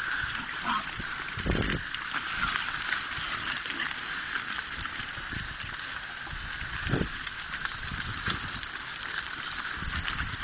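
A herd of wild boar on the move: many hooves scuffing and ticking on the dirt track, with an occasional low grunt.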